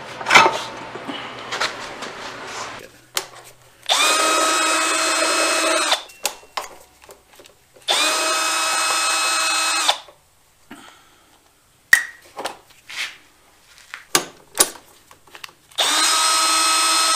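Red Milwaukee cordless drill running in three bursts of about two seconds each, a steady motor whine that rises briefly at the start of each, while backing screws out of the engine's grass screen. Light clicks and knocks come between the bursts.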